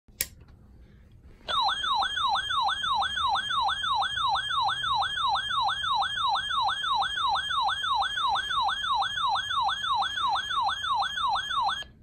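RadioShack weather alert radio sounding its alarm for a severe thunderstorm warning: a loud falling siren-like sweep repeated about three times a second. The alarm starts about a second and a half in after a sharp click, and cuts off just before the end.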